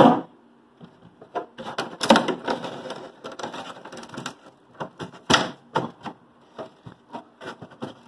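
Hard plastic clicking, knocking and scraping as a refrigerator's freezer-compartment housing is pulled and wiggled against the catch that holds it from below. A sharper snap comes about five seconds in.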